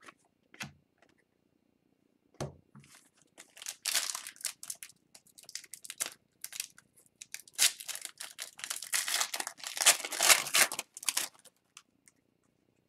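Foil wrapper of an O-Pee-Chee Platinum hockey card pack being torn open and crinkled by hand: a run of crackly rustling bursts, loudest near the end. A couple of soft taps come before it.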